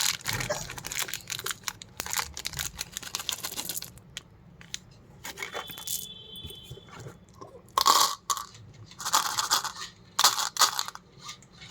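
Sweet wrappers and plastic packaging crinkling and tearing, with small hard pieces clicking and rattling against each other. The loudest rustling comes in three short bursts near the end.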